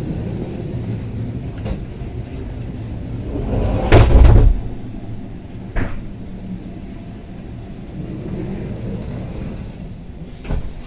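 Bernina Express railcar rumbling along the track, heard inside the carriage. A loud heavy clunk about four seconds in, then a sharp knock a couple of seconds later and another near the end.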